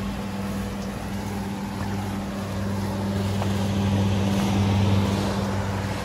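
A steady low machine hum under a rushing noise that swells about four to five seconds in and then eases off.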